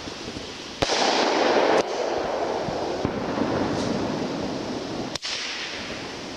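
Fireworks going off: a sharp bang about a second in, followed by a second of loud hissing noise that fades away, then another sharp bang near the end.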